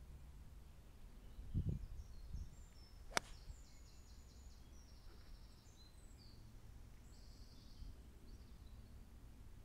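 Golf iron striking the ball on a tee shot: a single sharp click about three seconds in. A short low rumble comes a second or so before it, and birds chirp faintly in the background.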